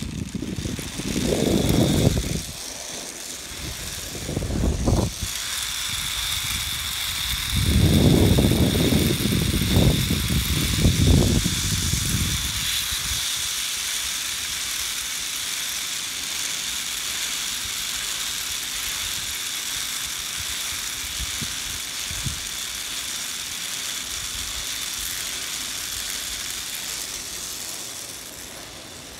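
Zipline trolley pulleys running along the steel cable: a steady whirring hiss with a faint high whine, fading a little near the end. Heavy low buffeting of wind on the microphone in gusts during the first twelve seconds.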